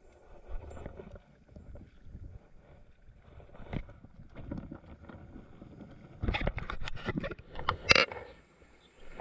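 Shallow stream water sloshing and splashing close to the microphone as someone moves in it and handles gear, with a quick run of louder splashes and knocks from about six seconds in, the loudest near the end.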